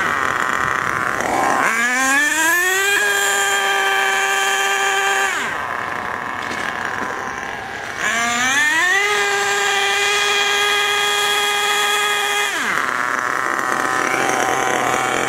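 HPI Savage's 3.5 cc nitro engine driving the RC truck hard twice: a high-pitched whine rises over about a second, holds steady for two seconds or so, then drops off as the throttle closes, with lower running in between. It runs in one gear only, the two-speed gearbox not yet shifting up, and is tuned rich on the high-speed needle.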